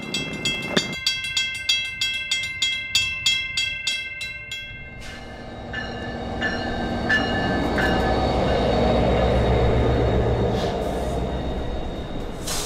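A rhythmic bell-like ringing of about three strokes a second stops about five seconds in. Then an NJ Transit commuter train comes in and passes with a rumble that builds, peaks and eases off, with some faint high squeals.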